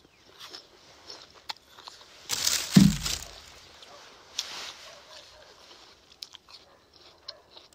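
Crunchy chewing of a bitten raw apple, with crisp crackles and a louder rush of noise about two and a half seconds in.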